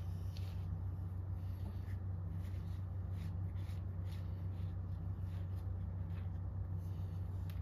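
A steady low hum runs under faint, irregular light clicks and scrapes from gloved hands handling the metal front hub and axle of a vintage car chassis.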